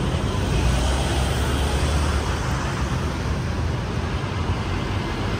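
Steady road traffic noise: a continuous low rumble of passing vehicles, with no single event standing out.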